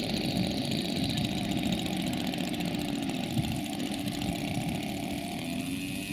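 Zenoah 26 two-stroke petrol engine of a 1:4 scale Vario Bell 47G model helicopter running steadily at low speed on the ground, its main rotor turning slowly.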